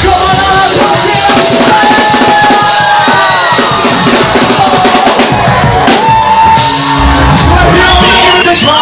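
Loud live dance-pop music played through a club PA, with a male lead vocal sung into a handheld microphone over a fast, steady beat.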